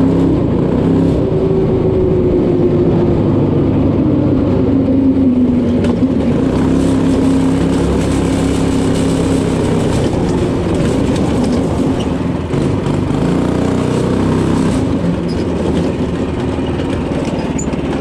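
Go-kart's 212cc single-cylinder engine running under way, its pitch easing down over the first few seconds. About two-thirds of the way through it dips briefly, then rises again as the throttle opens.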